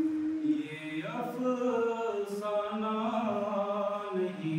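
A man's unaccompanied voice singing long held notes that slide from one pitch to the next, in the slow melodic style used for sung shayari couplets.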